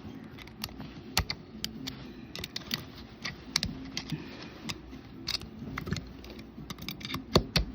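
Irregular light metallic clicks and taps of small winch parts being handled and pressed into place by hand, as the spring-loaded parts are pushed down into the winch housing during reassembly.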